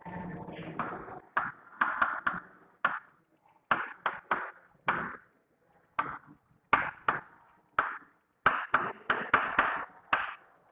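Chalk writing on a chalkboard: a rapid, irregular series of short taps and scrapes, bunched into quick groups as each word is written.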